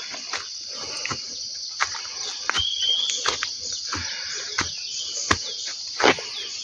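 Footsteps on a dirt path scattered with dry leaves, about one step every 0.7 seconds, over a steady high-pitched insect chorus. A bird chirps briefly about two and a half seconds in.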